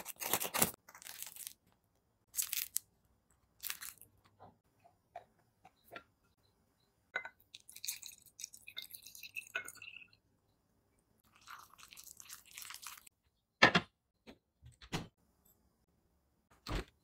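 A series of bread-making sounds: a knife crunching through a crusty loaf's crust, then water pouring into a glass jar of flour, and rustling with a few sharp knocks, the loudest about two-thirds of the way through.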